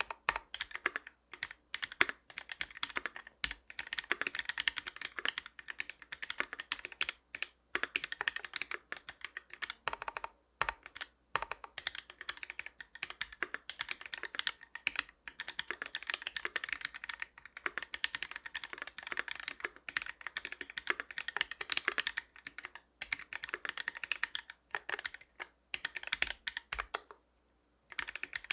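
Fast, continuous typing on a custom mechanical keyboard with lubed Gateron Milk White switches on 57 g springs, a brass plate and GMK keycaps, with brief pauses just after 7 s, near 10.5 s and shortly before the end.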